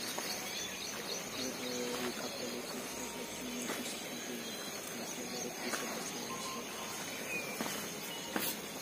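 Rural outdoor ambience: a steady high-pitched insect drone under scattered short bird chirps and calls, with a few soft clicks.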